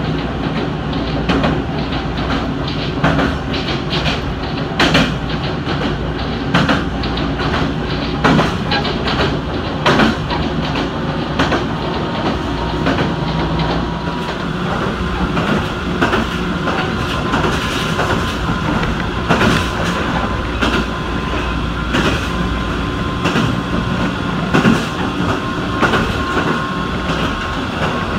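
Toyama Chiho Railway electric train running on the line, heard from inside the car: a steady rumble with wheel clacks over rail joints every second or two. A faint motor whine rises slowly in the second half.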